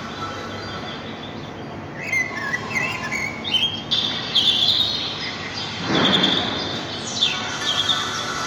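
Birds chirping in short gliding calls from about two seconds in, over a steady background rumble, with a brief rush of noise about six seconds in.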